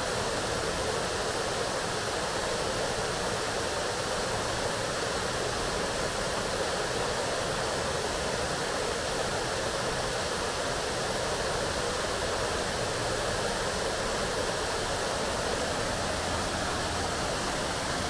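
Water rushing steadily in an upward-flowing waterfall fountain, an even, unbroken wash of water noise.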